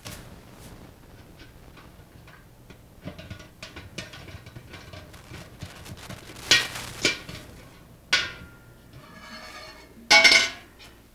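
Stainless steel pot lid and fittings clanking and scraping as the lid is worked open and lifted off, with a few sharper metal knocks past the middle. Near the end the lid rings with a clear metallic tone and there is a loud clank.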